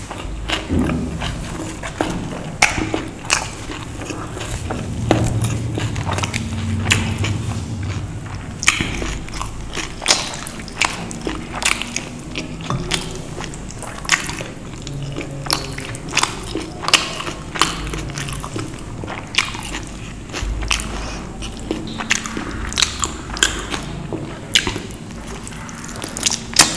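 Close-up eating sounds: a person chewing soft, wet food (roti dipped in paneer gravy), with frequent wet lip smacks and mouth clicks, about one or two a second, unevenly spaced.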